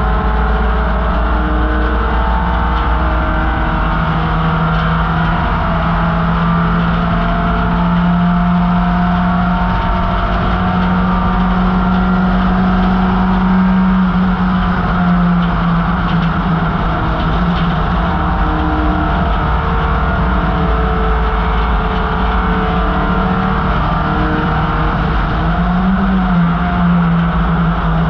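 1968 MGB GT race car's 1.8-litre B-series four-cylinder engine running hard at high revs under racing load. The pitch holds fairly steady, edges up over the first half, eases off about halfway, and briefly rises and falls near the end.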